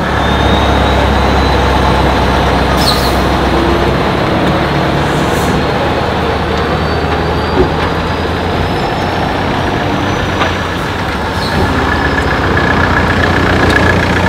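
Tatra 815 truck's diesel engine running under load as it tows an Ikarus 435 articulated bus, with a few short hisses of air about three, five and eleven seconds in.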